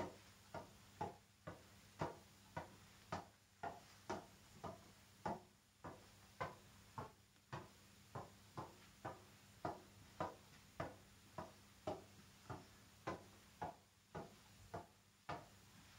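A tennis ball tapped up off a tennis racket's strings in keep-ups: faint, even taps about two a second.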